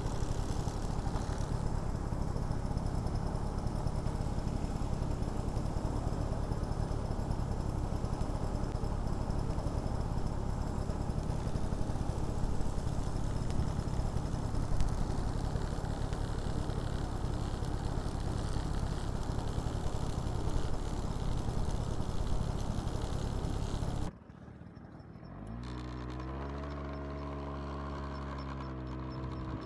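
Motorcycle engine running steadily at idle under a constant hiss. After a sudden cut near the end, the engine pulls away, its pitch rising, then holding steady as the bike rides on.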